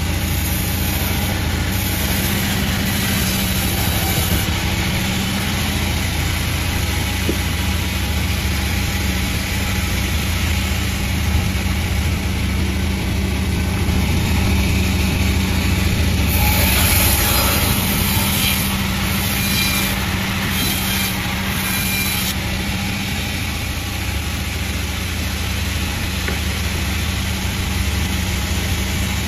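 Panda36 sawmill running steadily with a low motor drone, with a louder, brighter stretch a little past halfway.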